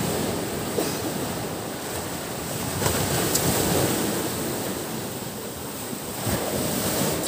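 Sea surf breaking and washing up a beach, swelling to its loudest about three seconds in.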